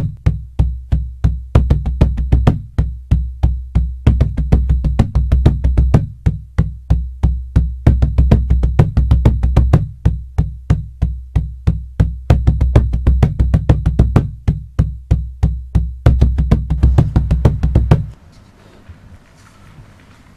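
Music: a drum struck in a fast, deep, booming rhythm of about four strikes a second, in phrases with short breaks. It stops abruptly about two seconds before the end, leaving only faint room noise.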